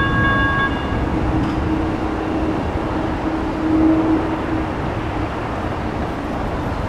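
Railroad crossing electronic bell (GS Type 1 E-Bell) ringing, then cutting off about a second in as the crossing gates begin to rise. Road traffic and wind noise run underneath.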